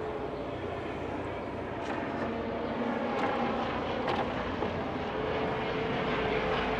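Medical helicopter flying over, a steady drone with a held tone that grows slightly louder.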